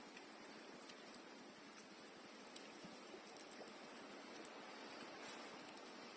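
Near silence: a faint steady hiss with a few faint, brief ticks.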